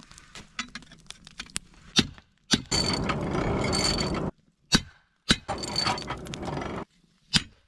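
Knife forging of leaf spring steel: sharp metallic clinks and strikes, a handful of them, alternating with two stretches of steady rushing noise that carry a faint high whine and start and stop abruptly.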